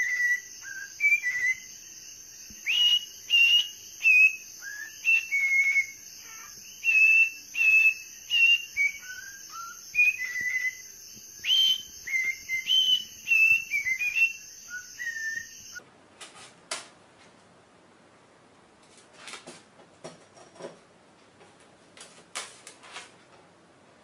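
A cockatiel whistling a string of short notes that hop up and down in pitch for about fifteen seconds, then breaking off. After that only a few faint clicks and taps are heard.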